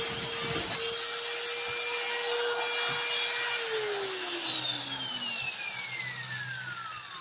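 Power grinder sharpening a lawn mower blade: a rough grinding noise on the steel for about the first second, then a steady whine as it runs free. About three and a half seconds in it is switched off and the whine falls steadily in pitch as it spins down.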